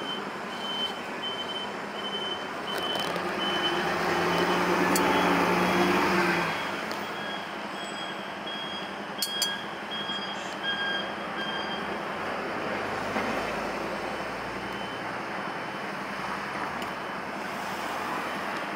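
Street noise with a high electronic beep repeating about twice a second for the first twelve seconds, and a vehicle engine passing close, loudest about four to six seconds in. A few light clicks of metal tongs on a stainless steel bowl come near the middle.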